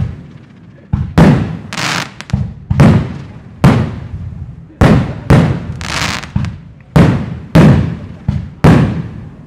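Aerial fireworks shells bursting in quick succession: a rapid series of loud booms, one or two a second, each echoing away before the next.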